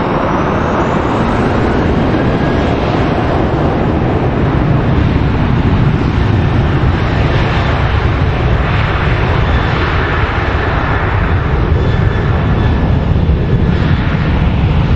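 Twin jet engines of a Boeing 737 at takeoff power during its takeoff roll: a loud, steady rushing noise that swells slightly now and then as the aircraft passes.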